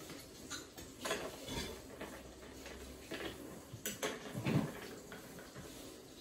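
Long metal bar spoon clinking against ice and stemmed cocktail glasses: a few scattered clinks and rattles, the loudest about four and a half seconds in.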